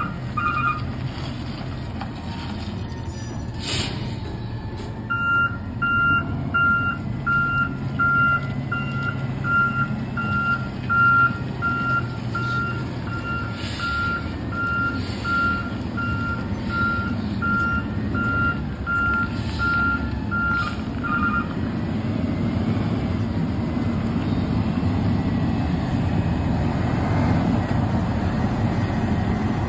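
Natural-gas Autocar ACX front-loader garbage truck manoeuvring, its reversing alarm beeping steadily over the engine's rumble, with a few short hisses. The beeping stops about two-thirds through, and the engine grows louder as the truck comes forward.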